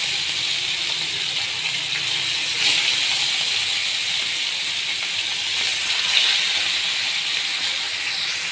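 Marinated fish pieces shallow-frying in hot oil in a frying pan: a steady, loud sizzle that swells twice, about three and about six seconds in, as more pieces are laid into the oil.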